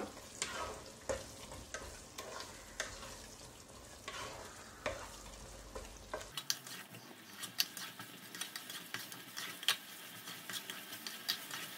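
Thick pickle masala sizzling in oil in a nonstick pot while a wooden spatula stirs and scrapes through it, with scattered sharp pops that come more often in the second half. The masala is cooking down to the point where the oil separates.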